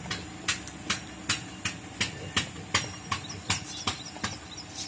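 A run of short sharp clicks, about two or three a second and slightly uneven, over a faint steady hum.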